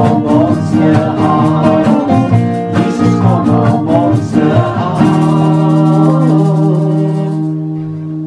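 A man sings an Afrikaans gospel song over strummed acoustic guitar. About five seconds in, the last note and chord are held, then fade out at the end of the song.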